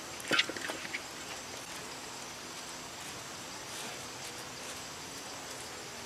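A steel wok set down on cinder blocks over a wood fire: a few clanks and knocks about half a second in, then a steady faint hiss.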